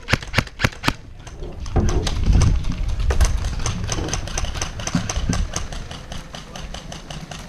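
Airsoft gun shots, a few sharp cracks in the first second. Then, from about two seconds in, a low rumble with a fast run of irregular clicks that fades toward the end.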